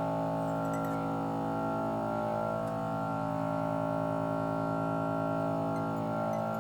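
Steady humming drone with several even tones and no change in pitch, typical of the vacuum pump of an LCD separator machine holding the phone screen down.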